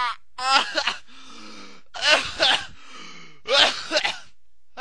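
A man making three loud gagging, retching noises of disgust, about a second and a half apart.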